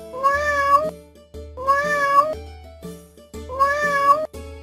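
A domestic cat meowing three times: the same meow repeated about every second and a half, the last one a little longer. A children's background tune with a steady bass runs underneath.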